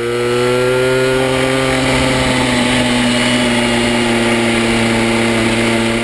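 1957 Puch MS50 moped's fan-cooled two-stroke engine, bored out to 70 cc, running steadily at about 50 km/h in third gear and cooled by its original aluminium fan wheel. Its pitch rises slightly in the first second or so, then holds steady.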